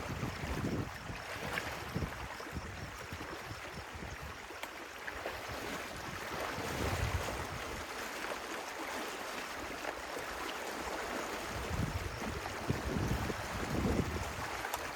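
Water flowing and splashing in a small wetland stream, with irregular low rumbling surges near the start and again near the end.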